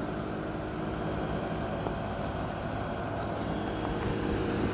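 Heat pump outdoor unit running steadily: a constant compressor hum with several steady tones over the rush of the fan.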